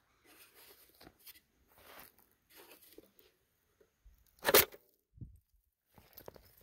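Footsteps crunching on dry, grassy dirt, soft and uneven, with one brief, much louder crunch about four and a half seconds in.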